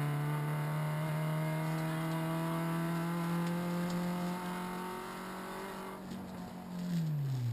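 Renault Clio RS rally car's 2.0-litre four-cylinder engine pulling hard at steady high revs, heard from inside the cabin. The note thins about six seconds in, then the revs fall away quickly near the end.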